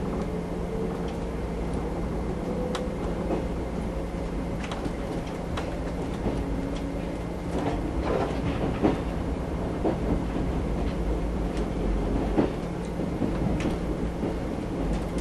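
Cabin sound of a JR 381 series electric express train running at speed: a steady rumble and hum, with the clack of the wheels over rail joints, more frequent in the second half.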